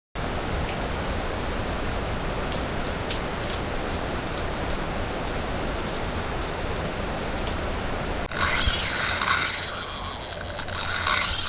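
Steady rain falling, an even hiss. About eight seconds in, it cuts abruptly to a louder, wavering buzz: a carp reel's clicker running as a fish strips line off the rod on its first run.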